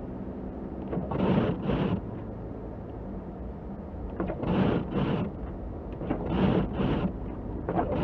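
Car windshield wipers sweeping the wet, snowy glass, each cycle a pair of swishes, one for the stroke across and one for the stroke back. The pair comes three times, a fourth starts near the end, all over the steady drone of the car's engine and tyres in the cabin.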